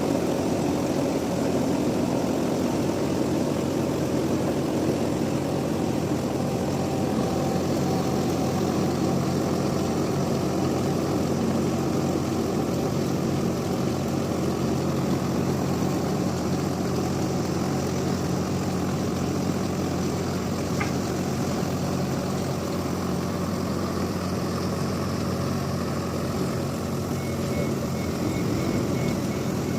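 Engine running steadily at one constant speed: a low, even hum.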